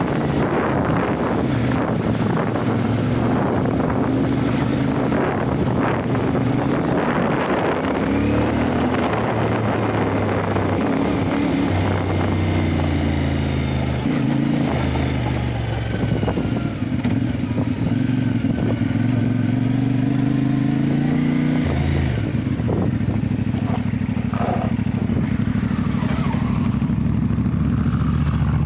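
Motorcycle engine running under way, its pitch shifting with throttle and gear changes; the revs climb steadily for several seconds, then fall sharply about three-quarters of the way through.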